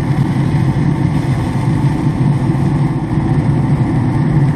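Steady low rumble from a Traeger wood-pellet grill running at 300 degrees with its lid open: the fan-fed pellet fire, heard close up.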